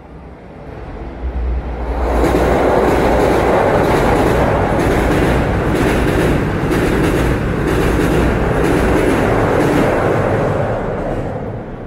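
A train crossing a steel girder railway bridge overhead: a loud rumble that swells over the first two seconds, holds with a fast clatter of wheels over rail joints, and fades away near the end.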